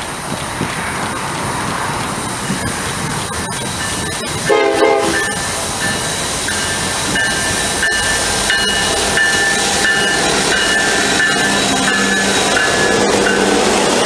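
Union Pacific intermodal train led by EMD SD70ACe locomotive 1989 rolling past on a curve: locomotives running by, a brief horn blast about four and a half seconds in, then high-pitched wheel squeal that comes and goes as the double-stack cars grind through the curve.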